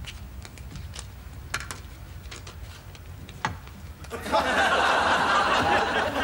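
A crowd of people laughing, breaking out loudly about four seconds in and carrying on; before it, only a few faint clicks.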